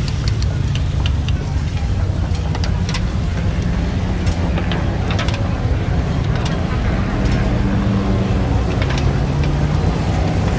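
A steady low hum of background noise with some voices, over which chopsticks and a spatula make scattered light clicks and scrapes against rectangular metal tamagoyaki pans.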